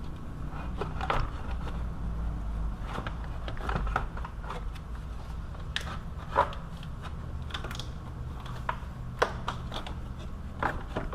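Irregular light clicks and knocks of small metal and plastic parts and tools being handled during work on a van's fan assembly, over a steady low hum.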